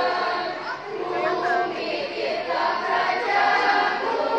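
A school choir singing, with long held notes that change pitch every second or so.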